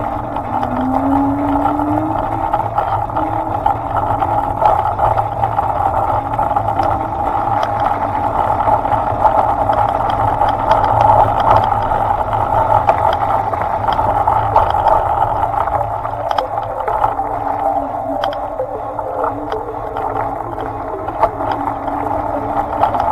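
Motor of a small vehicle running as it travels along a road, a steady hum with a tone that rises near the start and again near the end.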